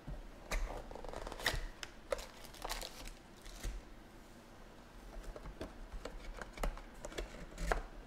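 A cardboard trading-card box being opened and its foil-wrapped packs lifted out and stacked on a table: a run of irregular rustles, crinkles and light taps, busiest in the first few seconds and again near the end.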